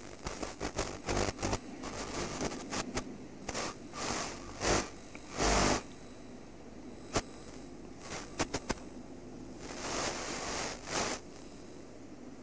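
Irregular scraping, clicking and crackling of stone and fossil fragments being handled on gravel, with a few louder rough bursts about four and a half, five and a half and ten seconds in.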